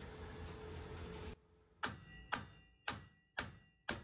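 Mini sledgehammer striking a 2004 GMC Sierra 2500's steel steering knuckle five times, about two blows a second, each with a short metallic ring. The blows are to shock the upper ball joint's tapered stud loose from the knuckle.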